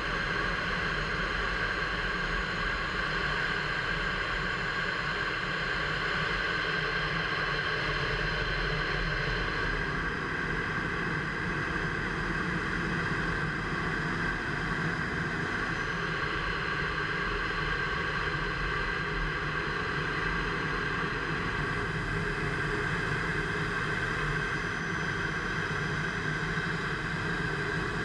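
Steady in-flight cockpit noise of an F-15 fighter jet: the constant drone of the jet engines and airflow, with several steady whining tones that shift slightly partway through.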